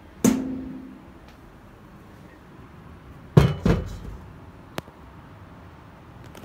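Kitchenware being handled: a ringing knock, then about three seconds later two quick knocks as a stainless steel pot is moved, and a short sharp click.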